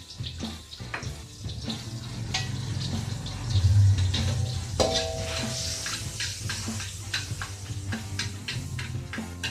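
Hot fat sizzling in a steel wok on a gas stove, with a metal spatula clicking and scraping against the pan. A louder burst comes about four seconds in as an egg goes into the hot fat, followed by a short metallic ring and a swell in the sizzle.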